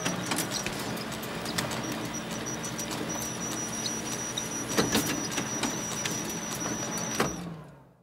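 Office photocopier running: a steady mechanical whir with a thin high whine and a low hum, dotted with sharp clicks. There is a louder clunk about five seconds in and another just after seven, then the sound dies away.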